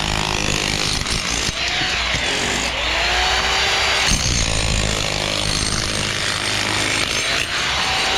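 A power tool running continuously, with a faint whine that slowly rises and falls in pitch several times.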